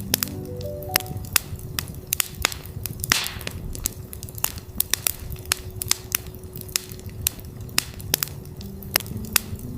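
Campfire crackling and popping in quick irregular snaps, with a brief hiss of flaring about three seconds in. A steady 369 Hz tone runs underneath, and a few soft pitched notes step upward just after the start and again near the end.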